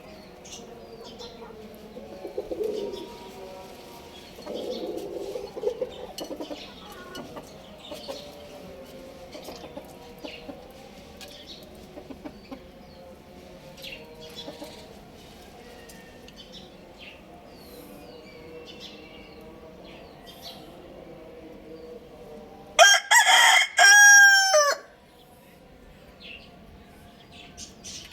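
A rooster crows once, loudly, for about two seconds near the end. The crow falls in pitch at the tail. Before it there is low clucking and scattered chirping of other birds.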